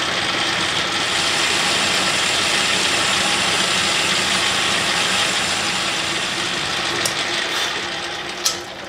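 Metal lathe running, a carbide insert taking a finishing pass on the outside of a cast iron bar: a steady machining noise. Near the end come a couple of sharp clicks, and the noise dies away as the lathe runs down.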